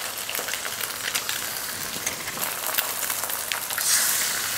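Hot oil sizzling in a stainless steel kadai of fried brinjal pieces, onion and green chillies as eggs are cracked into it, with small sharp clicks through it. The sizzle flares up loudest about four seconds in as an egg drops into the pan.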